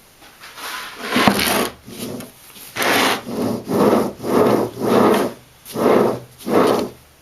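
Rhythmic scraping strokes, about two a second, after a single longer scrape about a second in.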